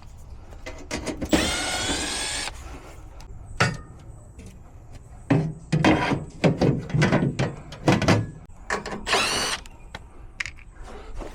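A power drill-driver spins twice, about a second each time with a slightly rising whir, as screws are backed out of the heat pump's access panel. Clanks and rattles of handling come in between.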